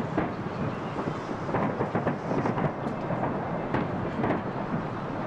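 Aerial fireworks salute: many shell bursts go off in quick succession, overlapping into a continuous rolling rumble like thunder.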